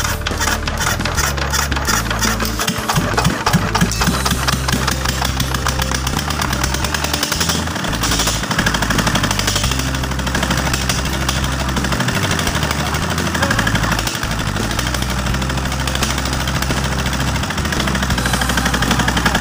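Freshly rebuilt Dongfeng S195 single-cylinder diesel engine running, with a loud, rapid, even knock of its firing strokes.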